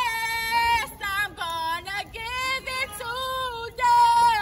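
Women's voices singing a sorority probate chant in high-pitched, short phrases with held notes.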